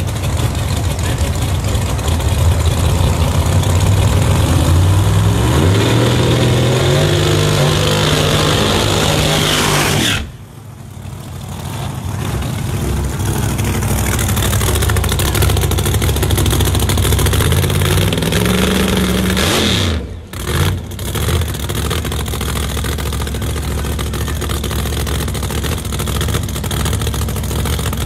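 High-powered drag race car engines running loud, the pitch climbing in steps for several seconds before the sound drops off abruptly about ten seconds in. The engine noise builds again, another rising rev ends suddenly about twenty seconds in, and a steady loud engine runs after that.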